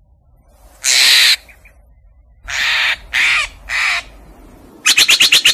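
Steller's jay calling: one harsh call, then three in quick succession, then a fast run of short, clipped notes near the end.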